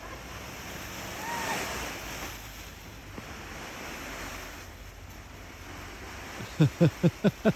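Snow sliding off the plastic roof of a hoop tunnel as it is pushed up from inside, heard as rushing swells that rise and fall twice. Near the end comes a quick run of short voice sounds, like a laugh.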